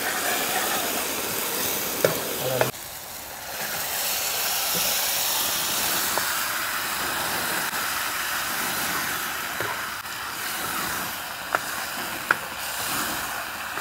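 Onion-tomato masala sizzling in a kadai on a gas burner, stirred with a metal ladle that clinks sharply against the pan a few times.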